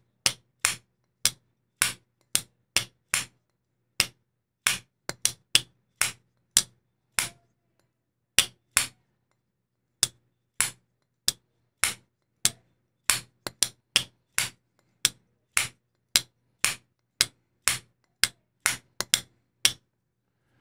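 Pro-Tech TR-3 manual button-lock folding knife being cycled open and shut again and again, each snap of the blade a sharp click, about two a second with a short break near the middle. The blade is being worked to break in a sticky action.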